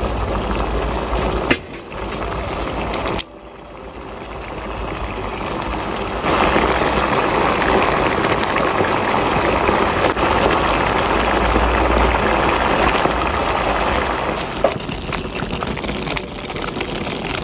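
Running water, a steady rush that grows louder about six seconds in and drops back near the end.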